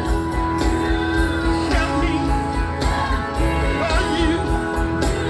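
Live gospel music: a choir singing with a full band, steady drumbeat and bass underneath.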